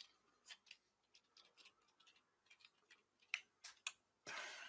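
Faint, scattered clicks of plastic LEGO bricks being handled and pressed together, with a short rustle near the end.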